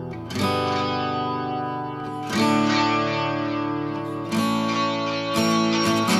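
Guitar chords, a new one every second or two, played through u-he Colour Copy, a bucket-brigade-style delay plug-in. Its input gain is pushed high for analog-style overdrive at first, then turned well down.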